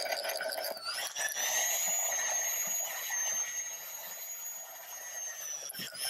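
Magnetic drill running with a high-pitched whine as its bit cuts through a broken stainless steel bolt. The pitch steps up about a second in and dips briefly near the end.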